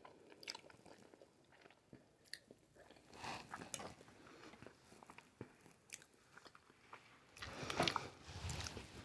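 A person chewing and eating spaghetti noodles in Alfredo sauce: faint mouth sounds with small scattered clicks, growing louder in the last second and a half.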